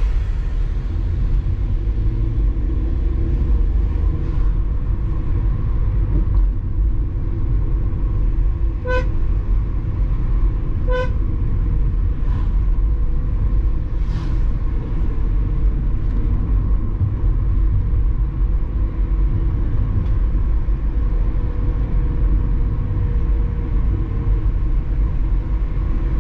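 Steady low rumble of a car being driven, with two short horn beeps about two seconds apart, around nine and eleven seconds in.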